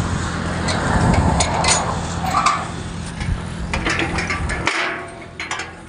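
Scattered metal clanks and knocks from a steel railway level-crossing swing gate being handled and unlatched, over a low steady hum that cuts off suddenly about three-quarters of the way in.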